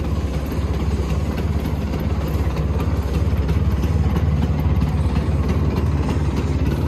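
Bajaj Chetak scooter engine idling steadily, a little louder from about three seconds in.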